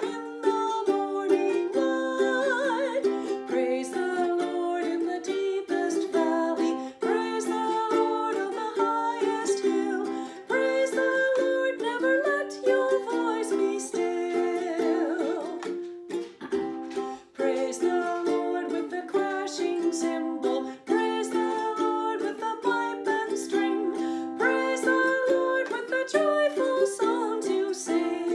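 Ukulele strumming chords in a steady rhythm, playing a hymn tune.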